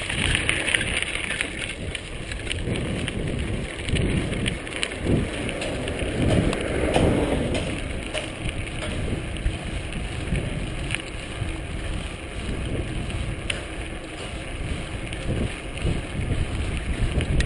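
Wind buffeting the microphone of a camera riding on a moving bicycle, with a steady rush of tyre and road noise and occasional small clicks and rattles from the bike.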